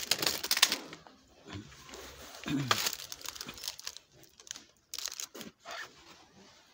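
Crinkling and rustling close to the microphone in several bursts, loudest in the first second, again near the middle and about five seconds in.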